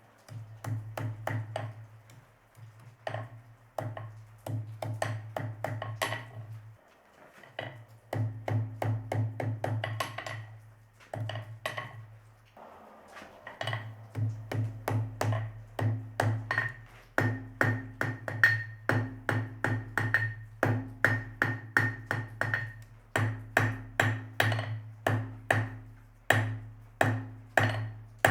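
Hand hammer striking hot steel on an anvil in quick runs of about two to three blows a second, each blow ringing, with brief pauses between runs.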